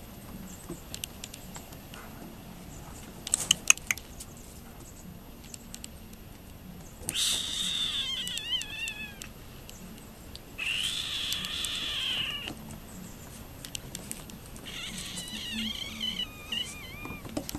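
Yorkiepoo puppy, about seven weeks old, whining: three drawn-out, high-pitched cries a few seconds apart, each a second and a half to two and a half long, the first and last wavering in pitch. A brief cluster of sharp clicks comes about three and a half seconds in.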